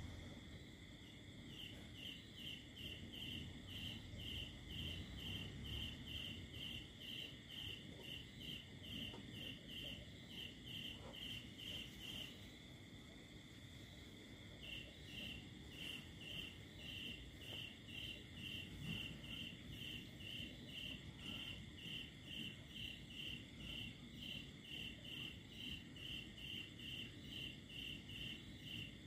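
Crickets chirping in regular short pulses, about two to three chirps a second, with a pause of about two seconds midway. A steady faint high tone runs underneath.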